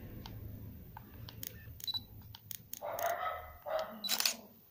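Canon DSLR with an EF 50mm f/1.8 STM lens being half-pressed and fired: light clicks, two short high focus-confirmation beeps, and sharp shutter-and-mirror clacks about three and four seconds in. A dog barks a few times between them.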